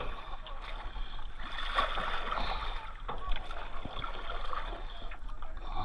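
Paddles splashing and dripping in river water as a kayak or canoe is paddled, with a few light knocks.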